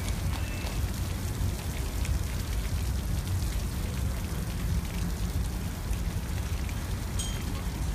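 Water sprinklers spraying, a steady hiss and patter of water falling on the ground, over a steady low rumble.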